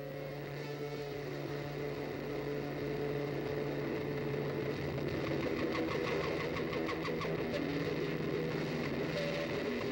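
An engine running steadily, gradually getting louder.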